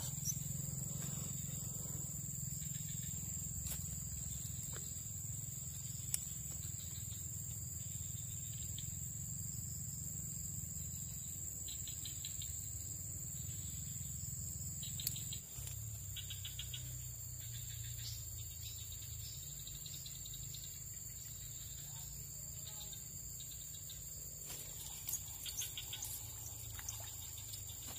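Steady high-pitched drone of insects, over a low steady rumble, with a few short bursts of faint ticking.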